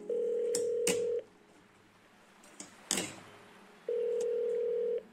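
Two long, steady electronic beeps at one low-mid pitch, each lasting about a second: one at the start and one near the end, like a telephone tone. A few sharp clicks fall between them.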